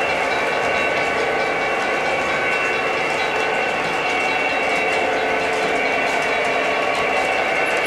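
O gauge model train of two Conrail EMD GP30 diesel locomotives pulling a hopper along three-rail track, running steadily with a continuous hum.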